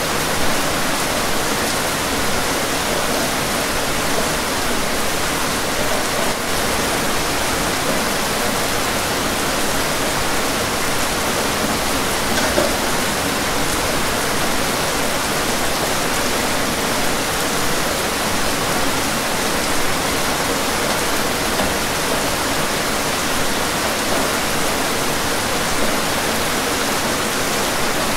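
Steady rain, an even hiss with the occasional slightly louder drop.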